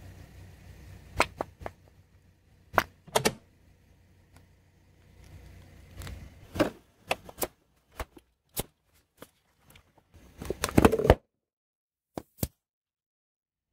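A car tyre rolling over and crushing plastic tubes, packages and cartons on asphalt. It gives a string of sharp cracks and pops over a faint low rumble from the car, with a louder burst of crackling near the end.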